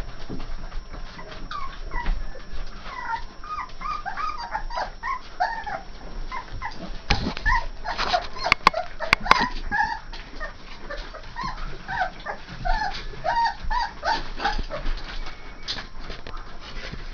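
A litter of 3½-week-old Saint Bernard puppies whimpering and squeaking, many short high cries overlapping throughout. A few sharp knocks come about halfway through.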